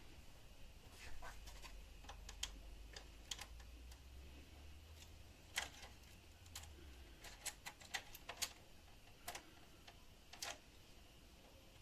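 Faint, irregular clicks and taps of small tools and plastic and metal laptop parts being handled during disassembly, over a low hum that fades out about two-thirds of the way through.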